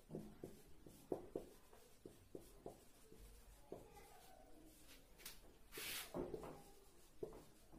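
Marker pen writing on a whiteboard: faint, quick taps and scratches of short strokes, with one brief louder hiss about six seconds in.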